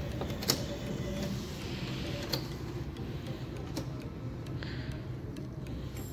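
NCR bank machine's card reader taking in a debit card: a sharp click about half a second in and another about two seconds in, then a few faint ticks as the machine verifies the card, over a steady low hum.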